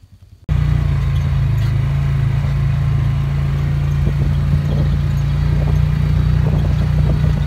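The Ranger's engine running steadily, heard from on board while it drives, a loud low hum that cuts in abruptly about half a second in.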